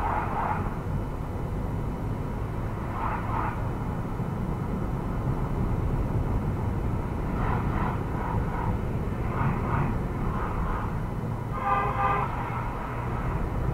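Steady low road and engine rumble inside a moving car, picked up by the dash cam's microphone. A short horn toot from traffic sounds near the end.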